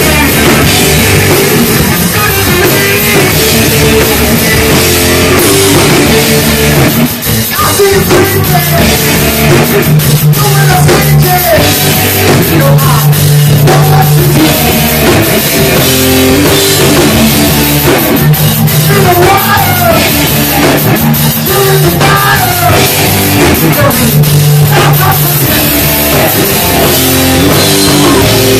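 Live rock band playing loud: electric guitars over a drum kit.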